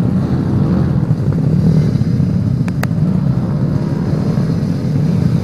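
Trail motorcycle engine running steadily, with one sharp click near the middle.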